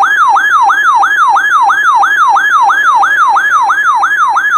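Weather radio receiver's electronic alert siren: a loud warbling tone that sweeps rapidly up and down, roughly three and a half times a second. It signals an incoming severe thunderstorm warning.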